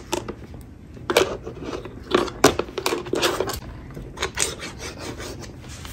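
Children's plastic scissors and plastic tools scraping and clicking against a plastic tray while cutting slime: irregular small taps and scrapes.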